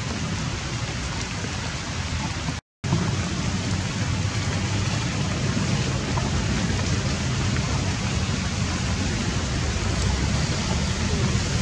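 Steady rain falling through forest foliage, an even hiss with a low rumble beneath it. The sound cuts out completely for a moment about two and a half seconds in.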